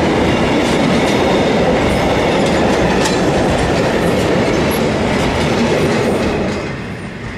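Freight train rolling past close by: a loud, steady rumble of wagon wheels on the rails that eases off near the end as the train goes by.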